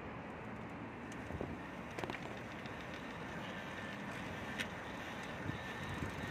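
Steady rushing wind and road noise of a bicycle ride, with a few sharp clicks about one, two and four and a half seconds in, and a faint steady high tone joining in the second half.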